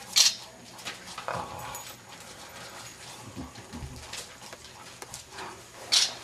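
Five-week-old English bulldog puppies whimpering, with two short sharp noises, one just after the start and one near the end.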